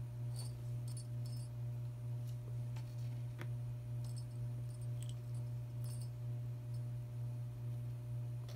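A steady low hum throughout, with scattered light clicks and faint tinkles as kittens bat and wrestle over a wand toy on a wood floor.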